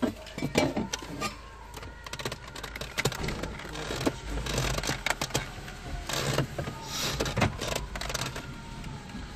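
Hands working inside a car dashboard's empty radio opening: irregular clicks, scrapes and rustles of plastic trim and the metal radio mounting frame being handled, with a few louder scraping swishes.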